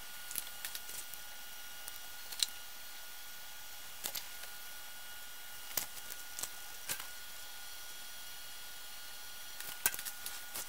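Scattered light clicks and taps as a soldered perfboard circuit board and small hand tools are handled and set down on a desk, about ten at irregular intervals, over a faint steady hiss.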